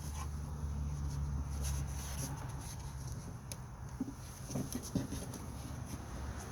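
Scattered light clicks and knocks of plastic air-intake parts being handled and fitted into place, over a steady low hum.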